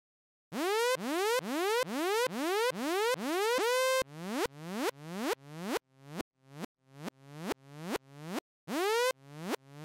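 Zebra2 software synthesizer playing repeated notes, about two a second, each with a fast upward pitch sweep from the multi-stage envelope modulating the oscillator's tune. About four seconds in, the notes drop to a lower pitch and become shorter and less evenly spaced as the envelope is changed, giving special-effects-type sounds.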